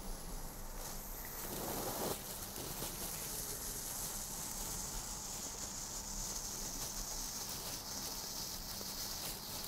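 Small red mini Bengal light (Weco ghost light) burning with a faint, steady hiss, with a brief louder rush about two seconds in.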